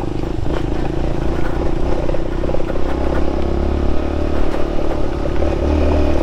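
Aveta RangerMax Explorer 130 moped's 130 cc engine running steadily under way on a rough dirt track.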